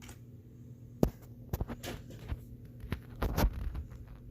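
A low steady hum with several short clicks and knocks scattered through it, a small cluster of them near the end.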